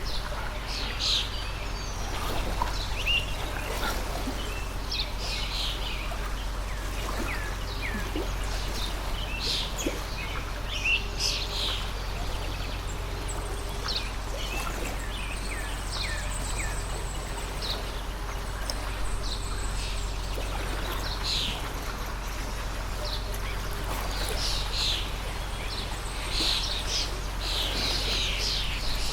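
A water stream running steadily, with small birds chirping throughout in many short, quick calls.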